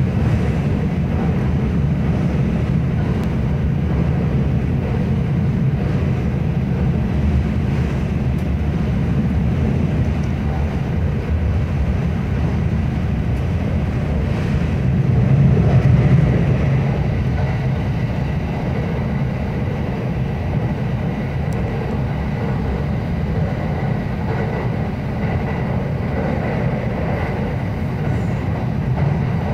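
Marine Liner rapid train running at speed, heard from the upper-deck cabin of its double-decker car: a steady low rumble of wheels on rail, swelling briefly about halfway through.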